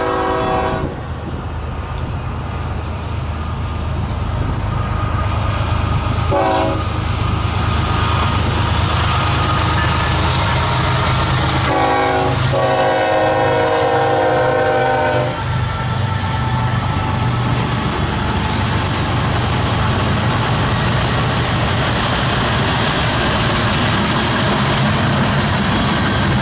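Norfolk Southern freight train approaching and passing with its diesel locomotive's horn blowing for a grade crossing. A long blast ends about a second in, a short blast comes about six seconds in, and a long blast runs from about twelve to fifteen seconds, over a growing engine rumble. The autorack cars then rumble and clatter past.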